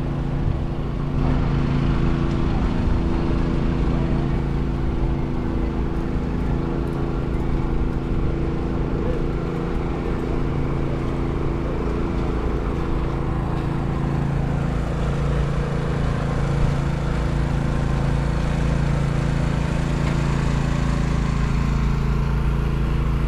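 City street ambience dominated by a steady low mechanical drone, an even hum that holds the same pitch throughout, with faint voices of passers-by.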